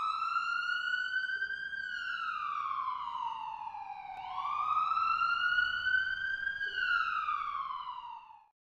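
Emergency-vehicle siren in a slow wail: two long rise-and-fall sweeps in pitch, then it stops near the end.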